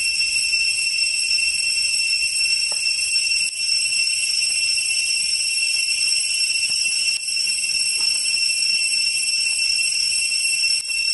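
Steady, high-pitched droning of insects such as cicadas, going on without a break.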